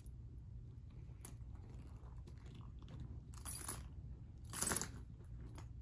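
Handbag with chain-and-leather handles being handled and turned around: rustling and crunching with short bursts, the loudest about four and a half seconds in, over a steady low hum.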